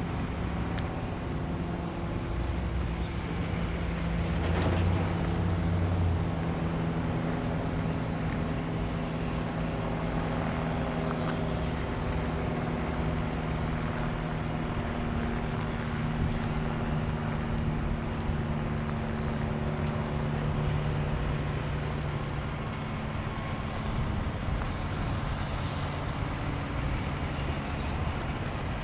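An engine running steadily at a constant speed, with a steady hum.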